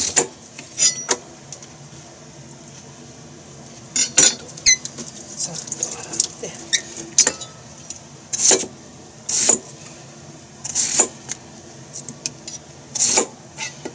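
A chef's knife cutting through a large root vegetable and knocking on a plastic cutting board, in separate sharp strokes every second or two, with a pause of a few seconds early on.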